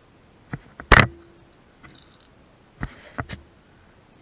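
Several short, sharp clicks and knocks: a few about half a second in, a much louder one about a second in, and two or three more near the end.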